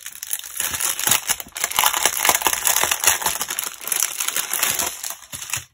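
A strip of small plastic bags holding resin diamond-painting drills crinkling as it is unfolded and handled, with many small sharp clicks. It stops abruptly near the end.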